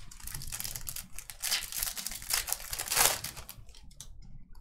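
Foil wrapper of a 2024 Topps Series 1 jumbo pack being torn open and crinkled by hand: a dense, crackling rustle that stops about three and a half seconds in.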